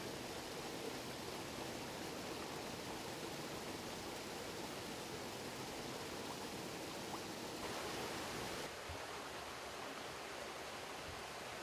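Steady rushing of flowing water in a canyon stream, with no clear pitch; its tone shifts slightly about eight seconds in.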